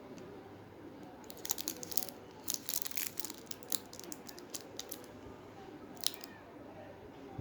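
Plastic wrapper of a Choco Roundz snack packet being torn open and crinkled: a run of sharp crackles lasting about three seconds, then a single crackle near the end.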